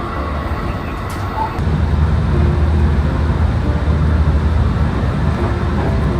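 Steady low rumble of a moving vehicle, growing louder about a second and a half in.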